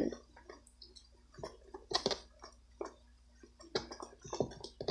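Slime being kneaded by hand with shaving cream worked into it: scattered wet squishes and little pops, with a few louder ones about two seconds in and near the end.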